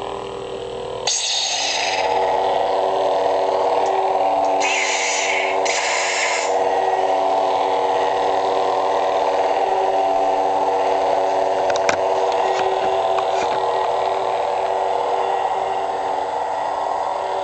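Lightsaber sound boards humming steadily through their small speakers. About a second in, one saber ignites: a sudden hissy burst that settles into an added steady hum. Two short hissy effects follow around five and six seconds in.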